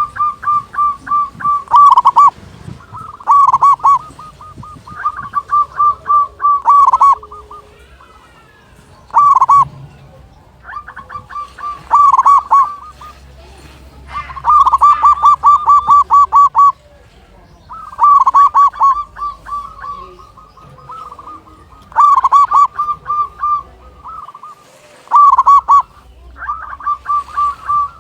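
Zebra doves (perkutut) cooing, a loud phrase of rapid rolled notes every one to two seconds, sometimes overlapping.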